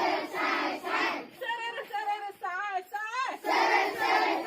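A group of children singing a Hindi train song: sung lines with wavering pitch come between loud, breathy shouted parts, one at the start and one near the end.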